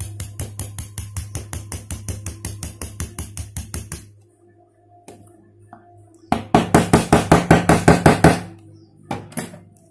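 Scissors snipping rapidly: a run of short, even snips at about seven a second for some four seconds, then after a pause a second, louder run of snips for about two seconds, and a couple of single clicks near the end.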